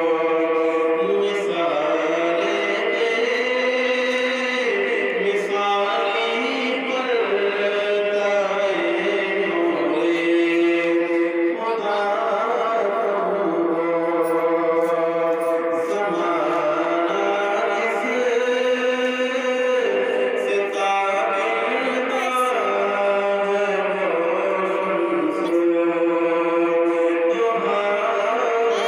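A man singing a naat, an Urdu devotional song in praise of the Prophet, in long held melodic lines that bend and slide between notes, with no break.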